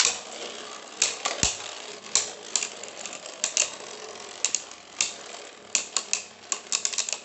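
Two Beyblade Burst tops, Cho-Z Achilles and Geist Fafnir, spinning in a plastic stadium: a steady whirring scrape broken by many sharp, irregular clicks as they strike each other and the stadium wall.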